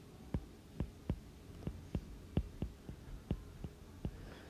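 Stylus tip tapping and clicking on a tablet's glass screen while handwriting, about eleven light, irregular taps.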